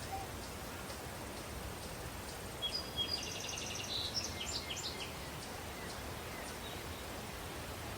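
Daytime country ambience: a steady breeze with faint, regular insect chirps, and a bird singing a quick, high trilled phrase in the middle.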